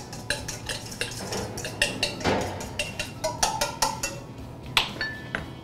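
A metal spoon stirring vinaigrette in a small stainless steel bowl, clinking quickly and repeatedly against the metal. A sharper, ringing clink comes about a second before the end.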